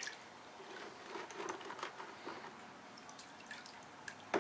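Faint, scattered clicks and light clatter from metal carburettor parts and a carb-cleaner spray can being handled on a towel. There is a sharp click at the start and another just before the end.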